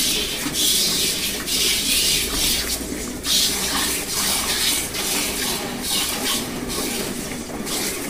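Hand-milking of Murrah buffaloes: jets of milk squirted from the teats hiss into metal pails in quick, uneven pulses, about two a second, from two milkers working at once.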